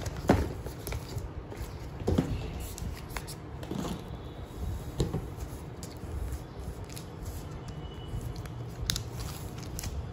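Handling noises from unboxing an aluminium laptop: about five scattered knocks and taps as the MacBook Air and its packaging are picked up, set down and turned over, with light rustling of the packaging in between.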